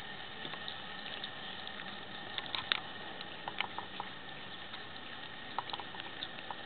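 Cats chewing raw meat: scattered wet clicks and smacks, clustered about two and a half seconds in, again around three and a half seconds, and near the end, over a steady hiss.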